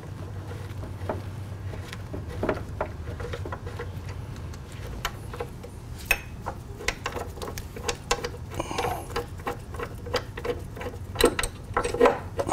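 Hex keys turning and working the mounting bolts out of a motorcycle's front brake caliper: irregular small metallic clicks and ticks that come thicker near the end, over a low steady hum.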